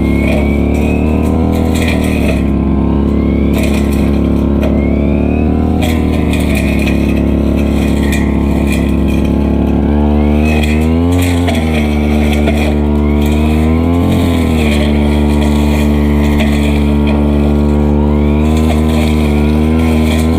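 Stihl FR3001 backpack brushcutter engine running fast and steady. About halfway through its pitch drops, then it wavers up and down a few times.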